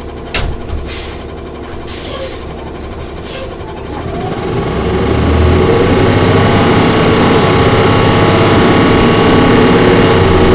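A 2011 Orion VII CNG transit bus with a Cummins Westport ISL G engine and Allison B400R transmission: a few brief air hisses, then from about four seconds in the engine note rises as the bus pulls away and settles into a steady, louder run.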